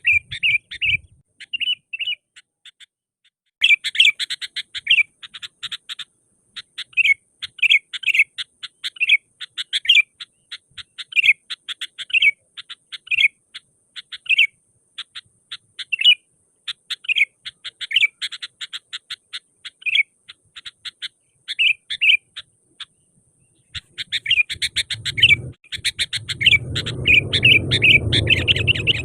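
Sooty-headed bulbul (kutilang) singing vigorously: short, bubbly phrases repeated every second or so, with a brief pause before the last few seconds. Near the end a low rumbling noise comes in under the song.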